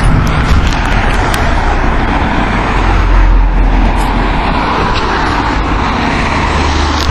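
Street traffic: cars passing on a road, steady engine and tyre noise with a low rumble that swells about three seconds in.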